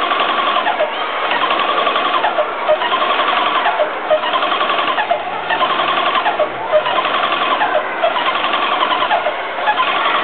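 Airless paint sprayer running, a rapid mechanical chattering that comes in repeating pulses about a second long with short dips between them.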